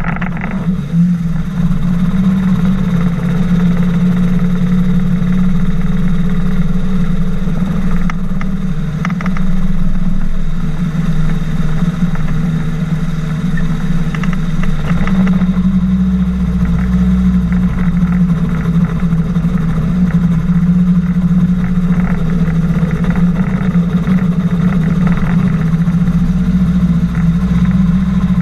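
Engine and pusher propeller of a flying inflatable boat running steadily as it taxis across the water, a constant hum with a deeper low rumble that comes in about halfway through.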